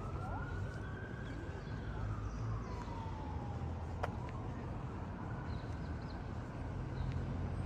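City street noise: a steady low traffic rumble with a distant emergency-vehicle siren wailing slowly up and down over it. A single sharp click comes about four seconds in.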